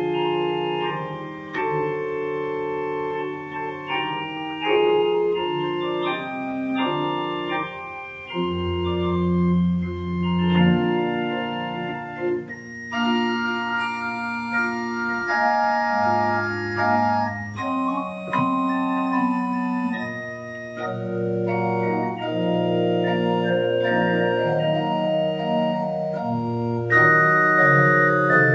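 Two-manual electronic church organ playing a prelude: sustained chords over moving lines, with a deep bass note held for about two seconds near the middle.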